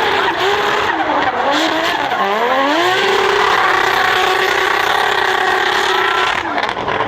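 Toyota GR86 drift car's engine held at high revs with its rear tyres squealing through a drift. The revs dip and climb back about one to two and a half seconds in, and drop again near the end.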